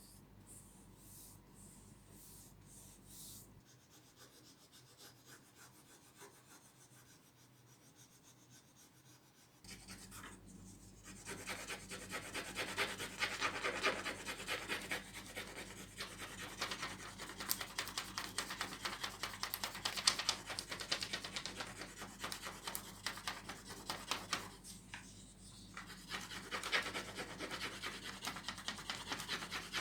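Quiet at first with a few faint taps, then, about a third of the way in, fast repeated rubbing and scratching strokes on the wooden tray's surface, pausing briefly near the end before starting again.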